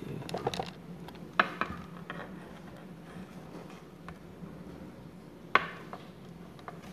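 Clicks and knocks of a cable and its plug being handled and coiled by hand close to the microphone, with two sharper knocks about a second and a half in and near the end, over a low steady hum.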